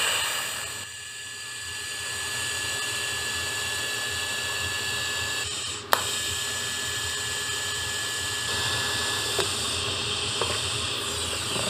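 TIG welding arc at about 199 amps running fillerless beads on a steel axle tube: a steady buzzing hiss with a thin high whine. About five and a half seconds in the arc stops briefly, then restarts with a sharp crack for the second bead.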